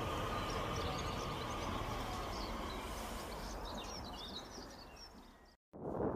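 DART electric multiple unit pulling away with a steady electric whine and low rumble that fade as it recedes. Birds chirp briefly about four seconds in. Near the end the sound cuts off sharply, then louder wind-like noise begins.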